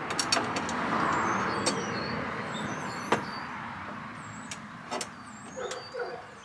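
A passing vehicle: a rushing noise swells about a second in and slowly fades away. Birds chirp over it, and there are a few sharp metallic clicks.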